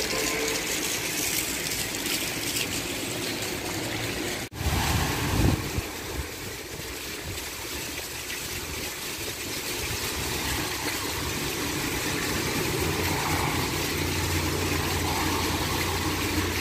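Steady rain with water gushing from a drainpipe onto a tiled yard. In the last few seconds the low hum of a car engine on the wet street builds under the rain.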